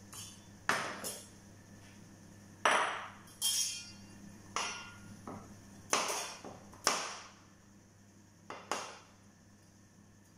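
About ten separate, irregularly spaced knocks and clinks of kitchenware: a ceramic bowl and a box grater set down on the countertop, then a chef's knife cutting tomato and cucumber against a plastic cutting board.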